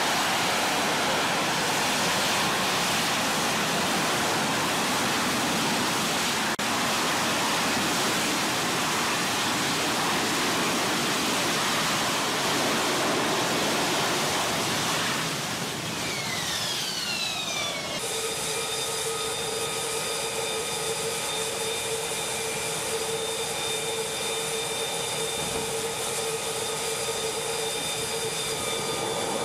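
AV-8B Harrier jet running at hover power, a dense, steady jet noise. Past the middle, a turbine whine glides down in pitch over about two seconds. Then an F-35B's engine runs on deck with a steady high whine made of several fixed tones.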